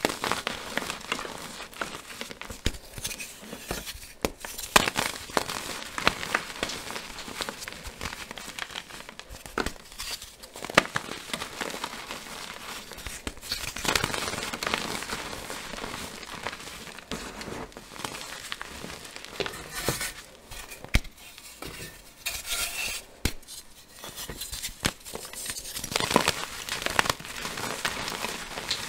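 Blocks of dyed gym chalk crushed and crumbled in bare hands: a dense, crisp crunching and crackling, with many sharp snaps as pieces break apart.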